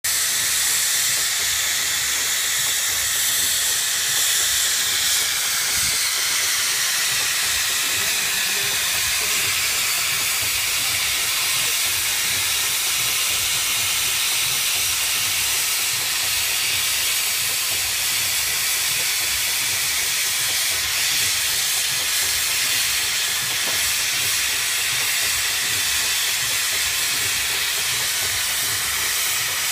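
Steady loud hiss of steam escaping from a Wallis & Steevens steam engine with its boiler in steam for a steam test.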